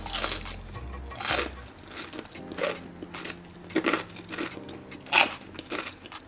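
Close-up crunching and chewing of crispy double-fried chicken, with a sharp crunch about every second and the loudest bite about five seconds in.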